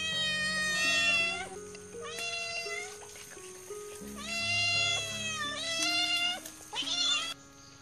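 Domestic cats meowing: about five long, drawn-out meows that rise and fall in pitch, the last one shorter and higher near the end.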